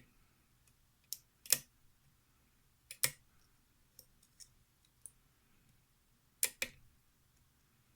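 Scattered sharp metallic clicks, some in quick pairs, of a lock pick working the pins of a pin-tumbler lock held under a tension wrench.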